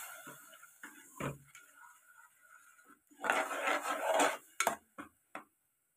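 A steel spoon scraping and clinking against an aluminium pressure-cooker pot while stirring thick mashed greens. There are a few sharp clinks, then a longer scrape about three seconds in, followed by three more clinks.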